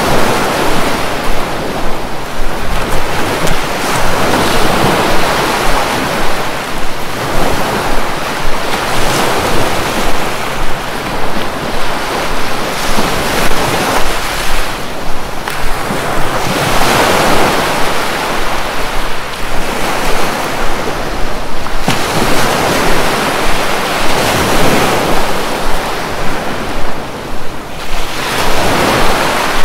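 Sea waves breaking on a beach: a loud, steady rush of surf that swells and ebbs as each wave comes in.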